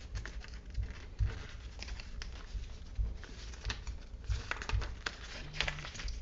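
Paper and card rustling with scattered light taps and clicks, as the iPad's folded documents packet is handled and searched through.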